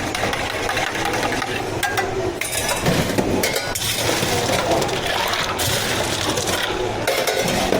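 Drink-making clatter behind a milk tea counter: repeated light clinks and knocks of cups and utensils over steady background noise.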